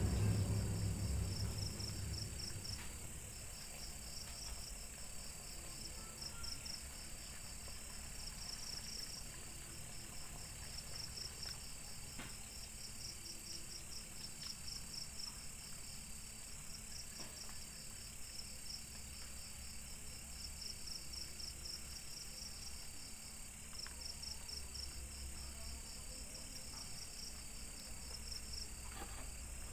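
Crickets chirping in quick pulsed trills, grouped and repeating, over a steady high insect hum. A low music tone dies away in the first couple of seconds.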